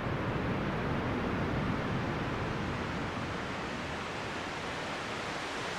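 Synthesized ocean-wave sound: noise from a VCV Rack noise generator, filtered and shaped in amplitude, heard as a steady surf-like hiss that eases slightly in level over the first few seconds.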